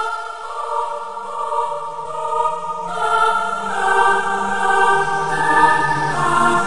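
Music: choir-like voices holding slow sustained chords, with a low bass note coming in about a second in and the level building toward the end.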